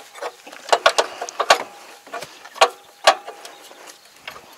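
Irregular sharp metal clicks and clanks from hand tools working on the steel track assembly of a small crawler machine, as the track's tension adjuster is tightened. A faint metallic ring runs under some of the clicks.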